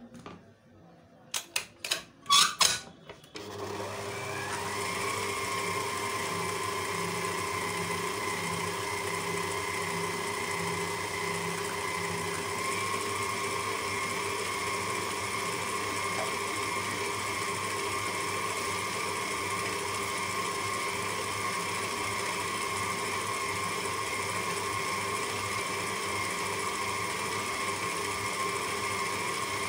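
A few sharp knocks and clicks, then an electric stand mixer starts about three seconds in, its whine rising briefly as it comes up to speed, and runs steadily, the flat beater turning through thick chocolate cake batter in a stainless steel bowl.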